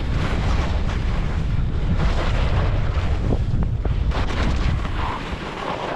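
Wind buffeting the microphone of a skier moving fast downhill, with skis hissing and scraping over the snow. The wind noise eases near the end as the skier slows.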